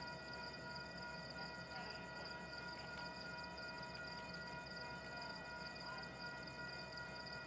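Steady drone from a stopped freight train: several constant tones under a high, even, fluttering trill, with no sudden knocks or changes.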